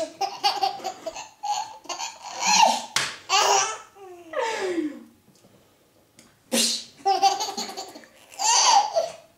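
An eight-month-old baby laughing in repeated peals of belly laughter, set off by a woman's fake sneezes. A sudden fake sneeze comes about six and a half seconds in, after a short lull, and the laughing starts up again right after it.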